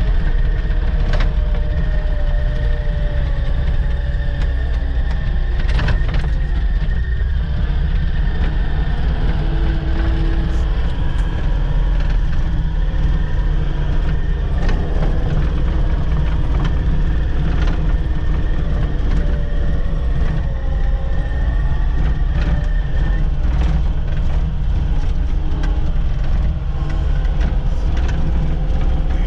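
Diesel engine of a compact excavating machine running steadily while working, with a thin high whine that stops about 23 seconds in and scattered knocks and clanks.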